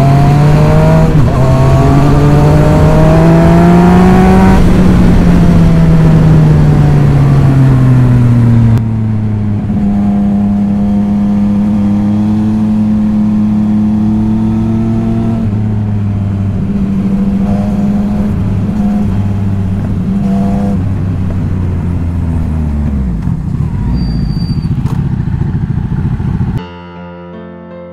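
Yamaha MT-09 three-cylinder motorcycle engine heard from the rider's seat, revving up for about four seconds and then easing off, with a rush of air over the microphone. After a sudden drop in level it runs steadier and quieter, then winds down near the end, where soft piano music takes over.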